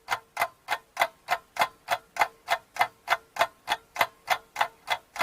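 Ticking clock sound effect marking a countdown, about three even ticks a second over a faint steady tone.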